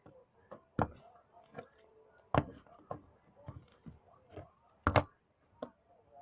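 A plastic finger BMX bike clacking against a hard surface as it is flipped and landed in finger tricks: a handful of sharp, irregular taps, the loudest about two and a half and five seconds in.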